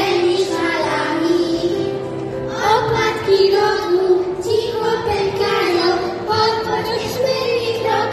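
Children singing a song into a handheld microphone over steady instrumental accompaniment.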